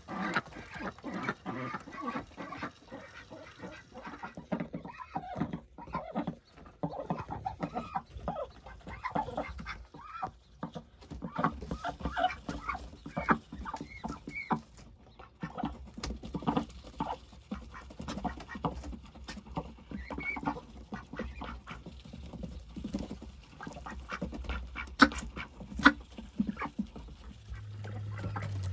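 Domestic ducks quacking and chattering in a long run of short calls. A couple of sharp knocks stand out near the end.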